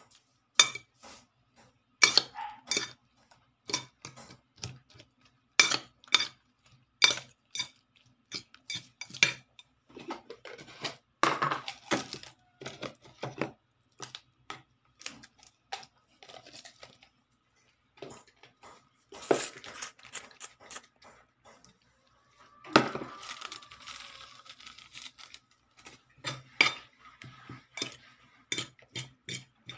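A utensil clinks and scrapes against a bowl while beating raw eggs with chopped tomato, onion and moringa (malunggay) leaves for an omelette. The clinks come in quick clusters with short pauses. About two-thirds of the way through there is one louder knock with a brief ring.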